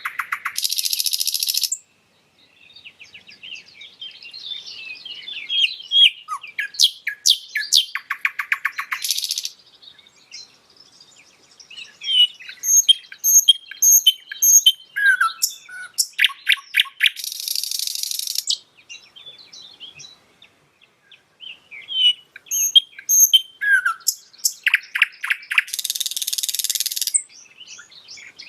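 Nightingale singing a string of varied phrases with short pauses between them. The phrases mix whistled notes with fast, dense rattling trills that come back several times.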